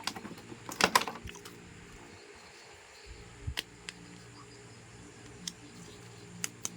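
Handling of a plastic action figure and its packaging: scattered light clicks and taps, with a short cluster about a second in and single ticks later, over a faint steady hum.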